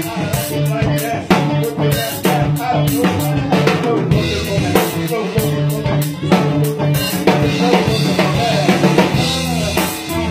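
A live band jamming, with the drum kit loudest and close up: kick, snare and cymbals keep a steady groove over sustained pitched notes from other instruments underneath.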